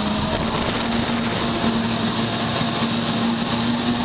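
Jet ski engine running at speed: a steady drone that edges slightly higher in pitch, over the rush of water and spray against the hull.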